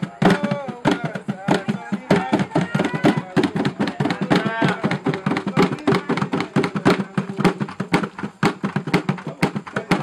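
Plastic buckets played as hand drums, hands slapping out a quick, steady rhythm, with voices joining in over the beat now and then.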